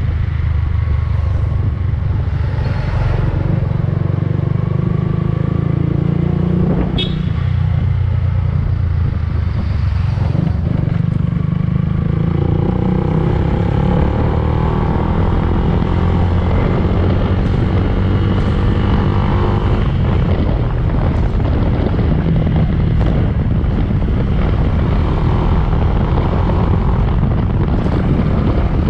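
Yamaha Fazer 150 single-cylinder motorcycle engine running steadily, with its pitch shifting somewhat midway.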